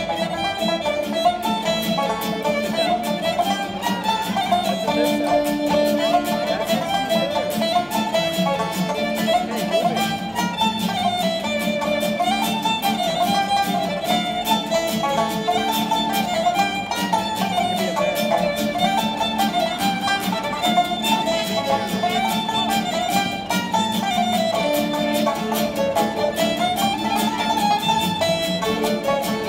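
Fiddle, banjo and acoustic guitar playing a Ukrainian kolomeyka dance tune, the fiddle carrying a quick weaving melody over steady strummed chords.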